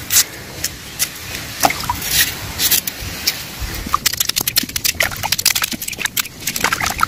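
Kitchen knife slicing peeled cassava roots over a metal basin of water: a scatter of short sharp cuts and clicks with small splashes and drips as the slices drop into the water. The cuts come thick and fast from about four seconds in.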